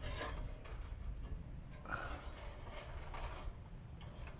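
Wind rumbling on the microphone, with faint rustling and light handling noise.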